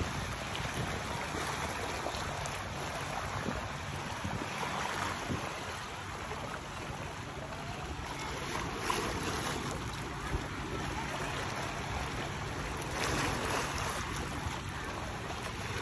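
Wind buffeting the microphone and water washing, over a faint steady low hum of a boat's motor.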